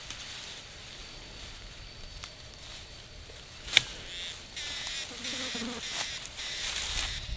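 Insects droning with a steady high-pitched tone. A single sharp click comes a little under four seconds in, and scratchy noises follow in the second half.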